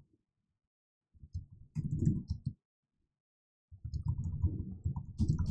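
Computer keyboard typing: a run of quick keystrokes about a second in, a pause of about a second, then a second, longer run of keystrokes.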